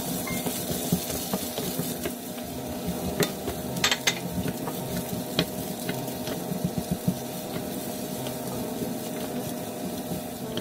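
Diced potatoes, carrot, mushrooms and onion sizzling in oil in a nonstick wok. A wooden spatula stirs them, scraping and knocking against the pan now and then, with a cluster of sharper knocks about four seconds in.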